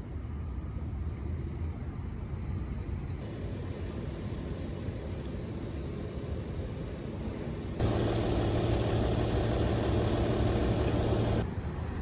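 Steady engine noise over a low rumble, in short spliced clips. The loudest part is a steady engine hum with a low droning tone, which starts abruptly about eight seconds in and cuts off shortly before the end.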